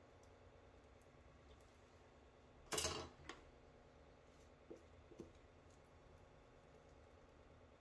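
Near silence while a kitchen knife cuts along a raw whole chicken's backbone, with one short, louder cutting sound about three seconds in, followed by a small click and two faint ticks a couple of seconds later.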